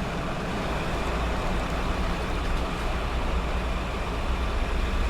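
Steady road and engine noise of a moving vehicle, a continuous low rumble under a smooth hiss.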